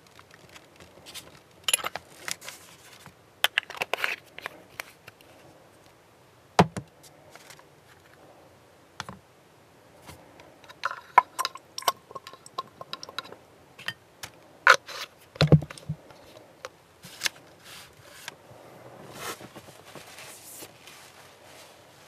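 Small irregular clicks, taps and scrapes of plastic model parts and hobby tools being handled on a workbench, with quiet gaps between them and a heavier knock about two thirds of the way through.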